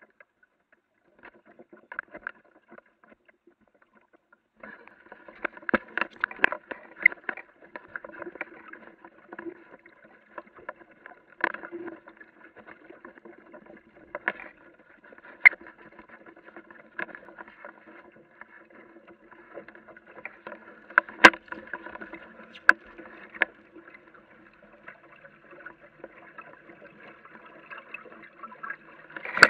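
Water lapping and gurgling against the hull of a small Aquamuse sailing dinghy under way, with sharp slaps and splashes now and then. It starts as scattered small splashes and becomes continuous about five seconds in.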